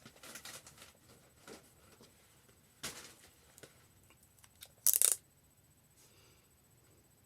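AA battery packaging being torn open by hand: scattered rustles and crackles, with one short, loud tear about five seconds in.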